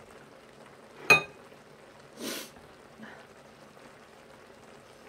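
A single sharp clink of chopsticks striking a ceramic bowl about a second in, ringing briefly, followed a second later by a short hissing sound.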